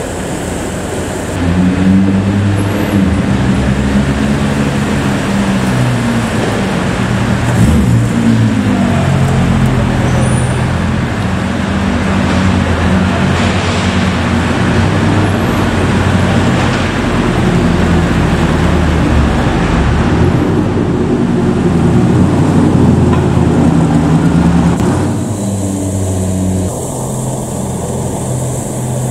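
Slow-moving road traffic of car-carrier trucks and cars, several engines running and pulling away in turn with their pitch rising and falling. It gets louder about a second and a half in and eases off near the end.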